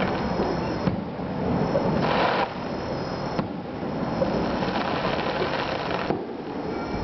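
Aerial fireworks heard from afar: a steady, dense crackle with a few muffled pops.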